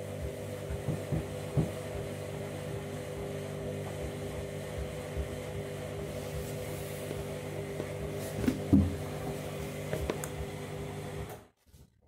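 Candy washing machine running with a steady mechanical hum, with a few light knocks, the loudest about three-quarters of the way through; the hum cuts off abruptly shortly before the end.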